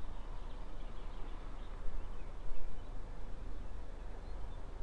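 Wind buffeting the microphone with an uneven low rumble that gusts a couple of times around the middle, and a few faint bird chirps above it.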